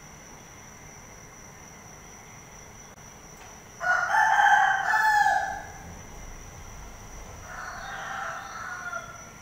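Rooster crowing: one loud crow about four seconds in, then a second, fainter crow near the end.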